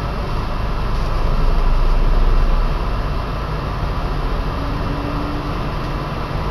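Running noise of a moving passenger train heard from inside the carriage: a steady low rumble with hiss, swelling louder for a second or two about a second in, then settling back.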